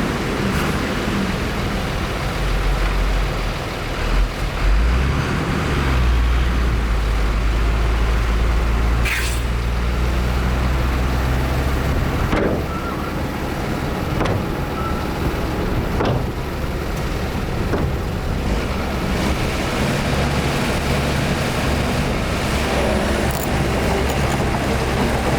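Heavy diesel earthmoving machinery working, a deep engine rumble that swells under load about three seconds in and eases after about nine seconds, then runs on steadily. A few sharp metallic clanks sound in the middle.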